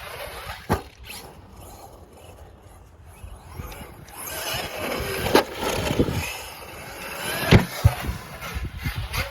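Traxxas Sledge RC monster truck's brushless motor whining up and down as it is driven, with sharp impacts of the truck hitting the ground four times, the loudest about five and seven and a half seconds in.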